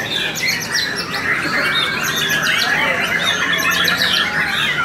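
A chorus of many caged white-rumped shamas (murai batu) singing at once, a dense, unbroken overlap of whistles and chirps.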